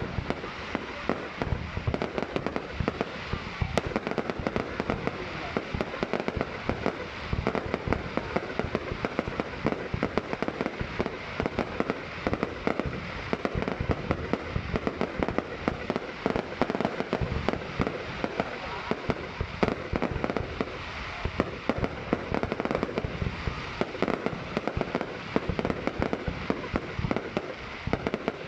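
Fireworks going off in a continuous barrage: many rapid bangs and pops overlapping without a break.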